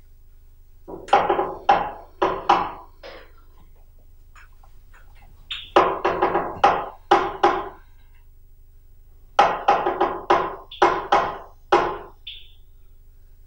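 Three runs of repeated knocks, five to seven in each, coming a few a second with pauses of about two seconds between runs.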